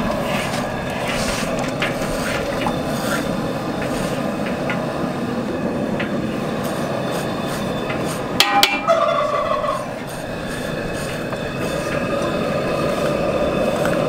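Metal bell scrapers rasping the loosened hair off a scalded hog's hide, a steady scraping. A few sharp clicks come just past halfway, followed by a brief pitched call.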